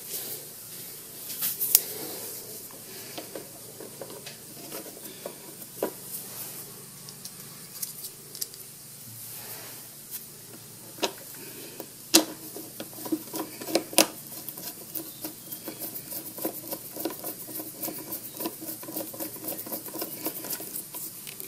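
A plastic control guard cover being fitted over a mower engine's throttle linkage and screwed down with a screwdriver: scattered clicks and knocks, then a run of quick small ticks through the second half as the screw is turned.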